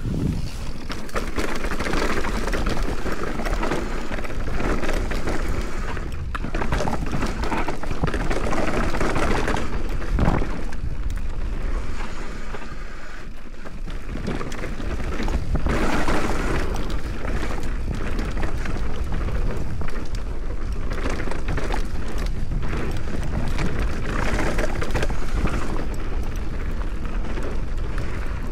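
Mountain bike descending a bike-park trail: tyres rolling over dirt and rocks with constant rattling knocks from the bike, over a low rumble of wind on the camera's microphone. One sharper knock about ten seconds in.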